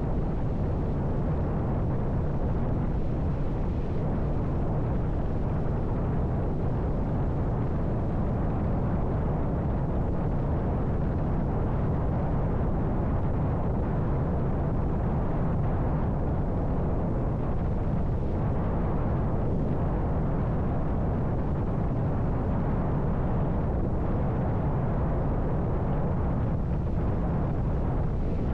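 Steady low rumble and rush of a motorcycle cruising at constant speed on open road, mostly wind buffeting the bike-mounted camera's microphone mixed with engine and road noise.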